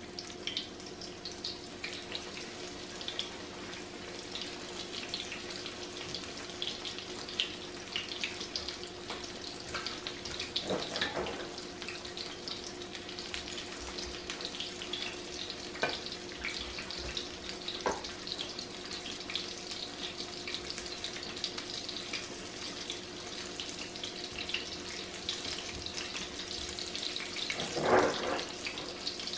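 Breaded cod fillets deep-frying in hot oil in a cast iron skillet: a steady crackling sizzle over a low steady hum, with two brief louder sounds, about eleven seconds in and near the end.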